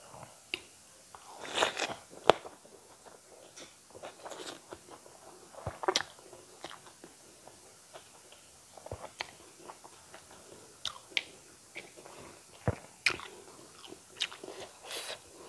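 Close-miked chewing of a handful of rice and eel curry eaten by hand, with irregular sharp mouth clicks and short crunches.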